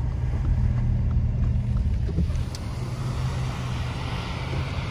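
Car driving slowly on a rain-soaked road, heard from inside the cabin: a steady low engine and road rumble with the hiss of tyres on wet pavement, which grows louder in the second half. A single short click comes about two and a half seconds in.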